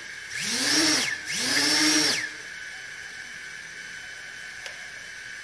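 Brushless motors of an Eachine EX2 mini quadcopter, driven by a JHEMCU EM15A 4-in-1 ESC, revved up and back down twice from the throttle stick, each time a whine that rises and falls. After about two seconds they settle to a faint steady whine.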